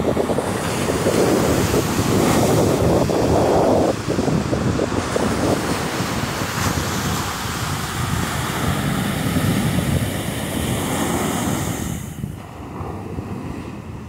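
Small ocean waves breaking and washing up a sandy beach, with wind buffeting the microphone; the sound eases off near the end.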